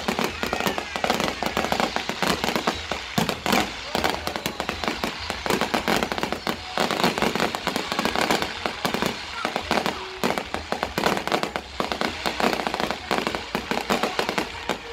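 Aerial fireworks bursting in a dense, continuous run of bangs and crackles.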